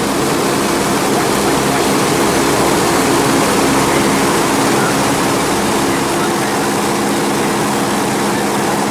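Aircraft engine running steadily, a constant drone with a low hum, heard from inside the cabin in flight.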